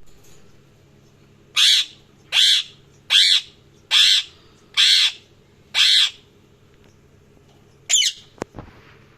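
A parrot calling loudly six times in an even series, about one call every 0.8 seconds. After a pause comes a shorter wavering call, then two sharp clicks.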